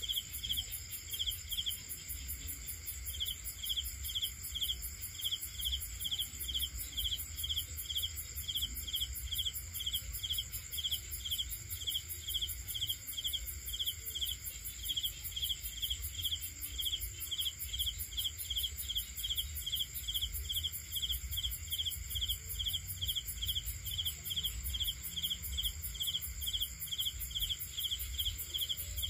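Crickets chirping in a steady rhythm of about two to three chirps a second, over a continuous high-pitched insect trill and a low rumble.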